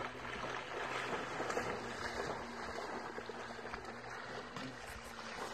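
A boxer dog swimming and splashing through lake water, with a steady low hum underneath.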